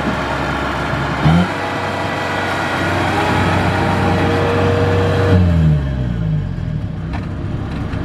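Kubota DC70 combine harvester's diesel engine revving up sharply about a second in, held at high revs, then dropping back about five seconds in, as the machine drives its tracks through deep mud.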